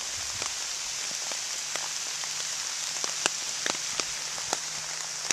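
Rain falling in the woods: a steady hiss with scattered sharper ticks of single drops.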